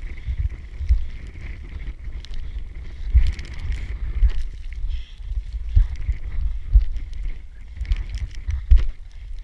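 Wind buffeting the microphone in irregular gusts of low rumble, with a few scattered clicks or knocks.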